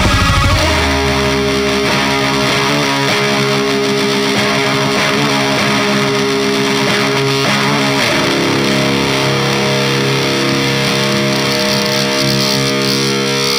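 High-gain distorted electric guitar through a This Heavy Earth Effects CHVRCHBVRNER pedal, playing black-metal style: fast-picked low notes for the first half-second, then held ringing chords that change about eight seconds in.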